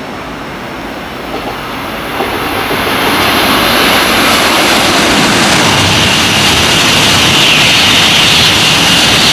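A Shinkansen passing through the station at speed on slab track. Loud, dense rail and wind noise builds about two seconds in and then holds steady, with a high whine over it in the second half.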